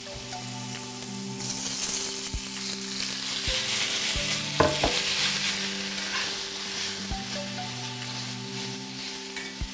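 Rice, onion and carrot sizzling in oil in a cast iron skillet while being stirred and turned with a utensil, with a handful of knocks and scrapes of the utensil against the pan.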